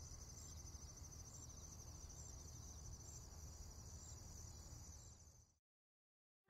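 Faint crickets chirping in a steady, pulsing trill over low background rumble, fading out about five seconds in.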